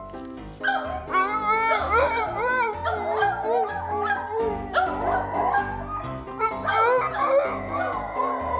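A dog howling and yipping in wavering calls that rise and fall, starting about a second in, over background music.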